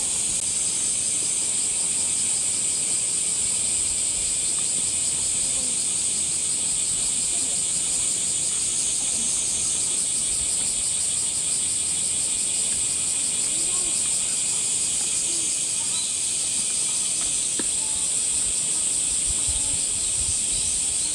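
Cicadas calling in a steady, loud summer chorus, a high unbroken buzz that does not let up.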